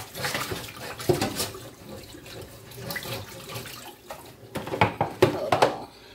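Kitchen tap running into the sink while a pan is rinsed and scrubbed out, with several knocks and clanks, the loudest a cluster about five seconds in.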